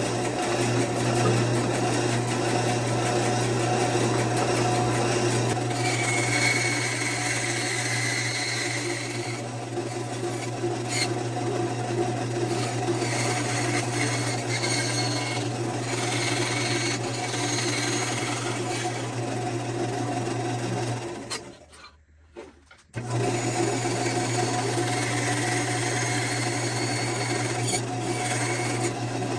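An electric power tool cuts wood: its motor runs with a steady hum while rasping cutting noise rises and falls as the wood is fed. The sound drops out suddenly for about a second and a half some three-quarters of the way through, then the same running sound resumes.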